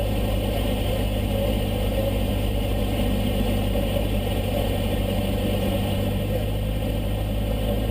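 Cessna 152's four-cylinder Lycoming O-235 engine and propeller running at a steady drone in flight.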